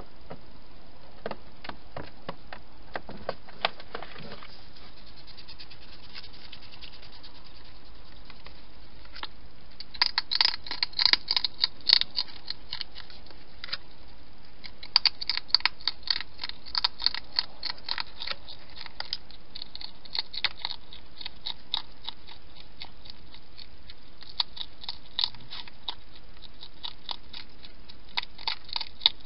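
Hedgehog eating at a feeding dish: rapid crunching and smacking clicks of chewing, coming in bursts with quieter spells between.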